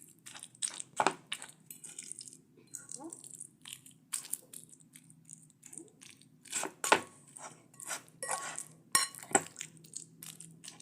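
Irregular crunching knocks and scraping of a dried-fig and garlic paste being mashed and stirred, with a faint steady hum underneath. The loudest knocks come about a second in and near seven seconds.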